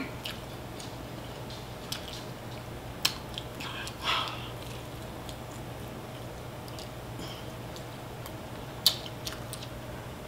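A person eating a sauce-covered fried chicken drumstick by hand: a handful of short, wet chewing smacks and clicks, scattered over a steady low hum.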